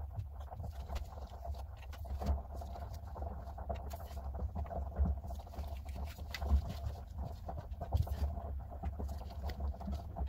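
Soft, irregular small clicks and rustles from a dog's paw being handled, over a steady low hum with a faint high tone.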